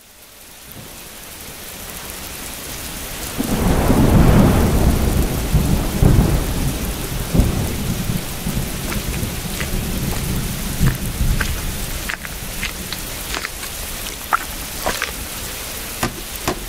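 Thunderstorm sound effect: rain fades in, a deep roll of thunder comes in about three and a half seconds in and dies away over several seconds, then steady rain with scattered sharp drips.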